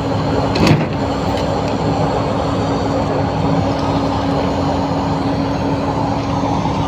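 Heavy machinery engine running steadily with an even hum, and a single sharp knock under a second in.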